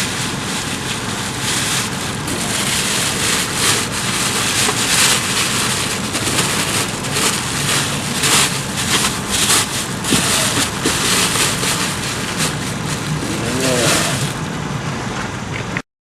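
A car engine running under loud rushing wind noise on the microphone, with irregular gusts flaring up. It cuts off suddenly near the end.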